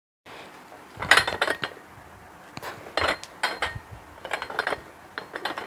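Plate-loaded iron dumbbell handled on a table, its metal plates and collars clinking and knocking in a run of irregular sharp clinks.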